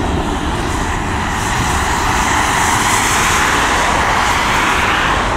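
Boeing 767-300 jet airliner's engines at takeoff power: a loud, steady jet noise that swells through the middle and eases slightly near the end.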